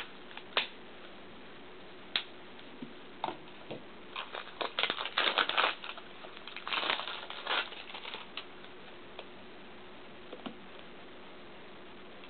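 Plastic clicking of a Sheng En Type F-II 3x3x3 puzzle cube being turned by hand: scattered single clicks, then a quick flurry of turns from about four to eight seconds in.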